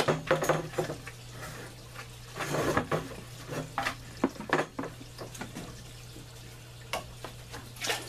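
Plastic tubing and fittings being handled and fitted: irregular clicks, knocks and rustles. Under them are a steady low hum and running water.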